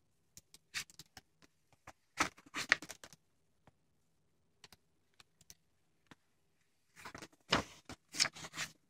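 A picture book being opened and its pages turned by hand: light clicks and bursts of paper rustling, in two clusters about two seconds in and again near the end.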